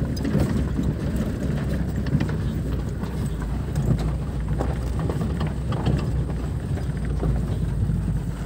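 A moving motor vehicle: a steady low engine and road rumble with frequent small knocks and rattles.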